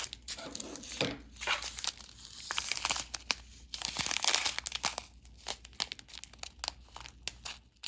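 Small plastic bags of diamond painting drills being handled: irregular crinkling and rustling of the plastic, with sharp little clicks in between.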